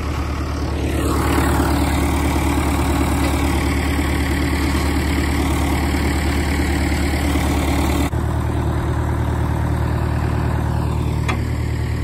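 Vehicle engine running steadily, a low even drone that shifts abruptly to a slightly different tone about eight seconds in.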